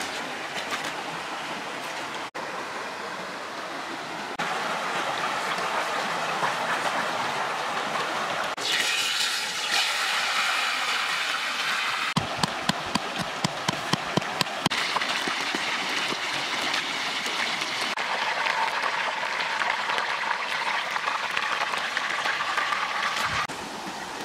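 A series of short clips of steady hiss, like running water and frying, changing abruptly every few seconds. Partway through, sharp pops crackle over the hiss while a whole fish fries in a small wok over a wood fire.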